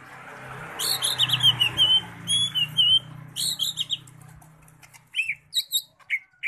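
Caged green leafbird (cucak ijo) singing fast strings of high chirping and twittering notes, over the rustle of its wings as it flutters about the cage. Near the end the song breaks into short separate calls.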